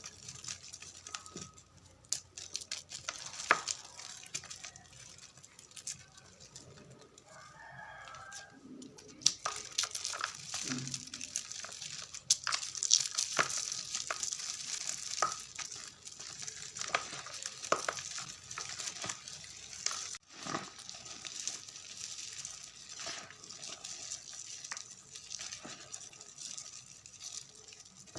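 Gym chalk mixed with confetti being crumbled, a continuous crackling and crunching with many sharp snaps.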